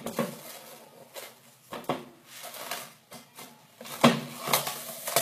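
Plastic cling film crinkling as it is pulled off the roll and torn off against the box, with a few sharp clicks and knocks from handling the roll; the loudest comes about four seconds in.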